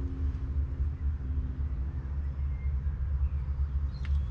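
2008 Valtra N91's 4.4-litre four-cylinder diesel engine idling with a steady low rumble.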